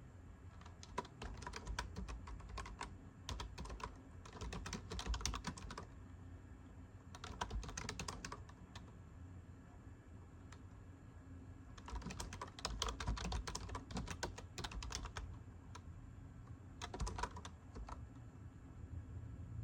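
Typing on a computer keyboard: quick runs of key clicks lasting one to three seconds each, broken by short pauses, about five runs in all.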